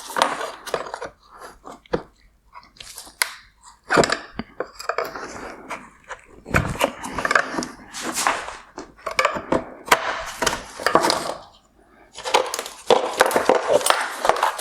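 Plastic clicking, crunching and creaking as the main wire connector of a halogen headlight is squeezed at its side tabs and pushed into the plastic headlight housing, with the housing handled between the sharp clicks.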